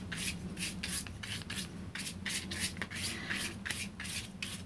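Flat paintbrush dry-brushing PaperArtsy Fresco Finish paint across a sheet of card: quick, scratchy back-and-forth strokes, several a second.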